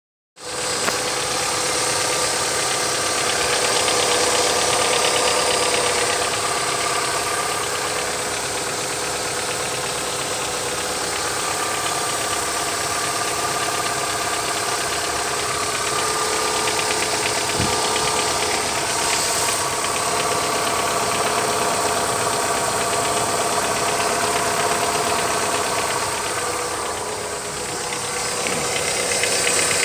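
Opel X16XEL 1.6-litre 16-valve four-cylinder petrol engine running at idle with a steady, regular knock.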